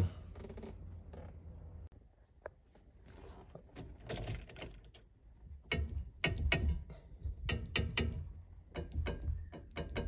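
Scattered light clicks, taps and rattles of hand work on a Volkswagen Beetle's steering-wheel hub: a screwdriver tightening the horn-wire clip screw, then the horn contact being pressed. No horn sounds, because the horn is not yet making a good connection.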